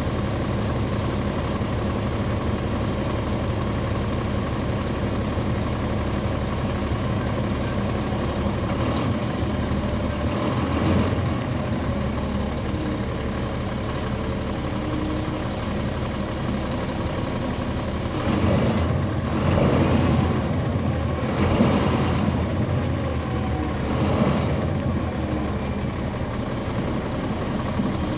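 Bus interior near the rear-mounted Caterpillar C13 ACERT diesel engine of a NABI 40-SFW transit bus, running steadily. Several short bursts of air hiss break in, one about 11 seconds in and a cluster of about four in the second half.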